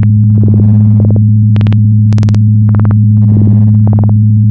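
Loud electronic glitch sound effect: a steady low buzzing hum with bursts of crackling static about twice a second.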